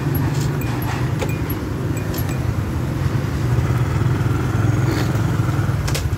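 Honda Future 125's single-cylinder four-stroke engine running steadily while the bike is ridden slowly, heard from the handlebars on a freshly remapped ECU, with a few light clicks and rattles.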